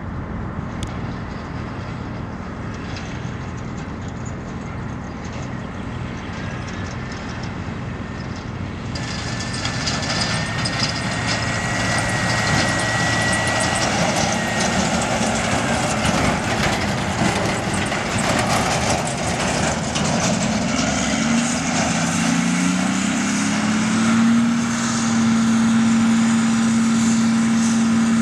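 Diesel engines of silage machinery running steadily. About a third of the way in the sound turns louder and brighter, with a high whine for a few seconds. Near the end one engine revs up and holds a steady higher note.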